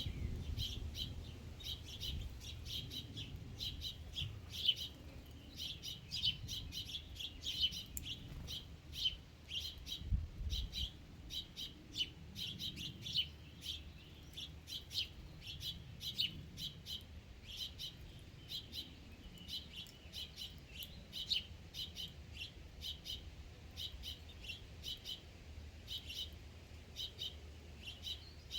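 Birds chirping, short high notes repeated several times a second without a break.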